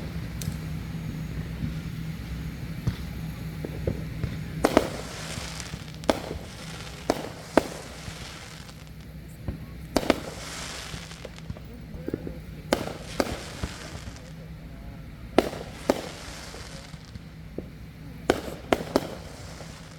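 Backyard fireworks going off: about a dozen sharp bangs, several coming in quick pairs, with crackling sparkle trailing a few of them. A steady low hum runs underneath.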